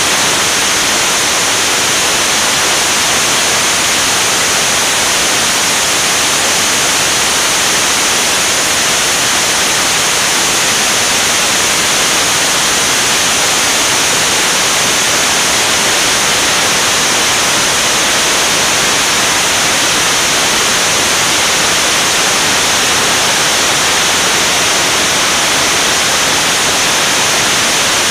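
Steady, loud high hiss of airflow rushing over a camera mounted on an aircraft wing in flight, with no distinct engine note.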